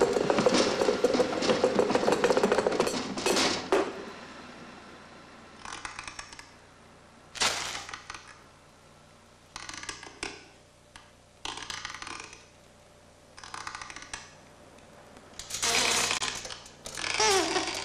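A tram passing with a steady rumble, which fades out about four seconds in. Then come short rustles and scrapes of crumpled newspaper, separated by pauses, and near the end a louder stretch of creaking.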